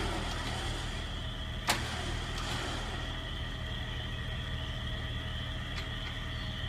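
Jeep-mounted electric winch running under load as it hauls in the cable to raise the tower, a steady whine over a low hum. One sharp click comes a little under two seconds in.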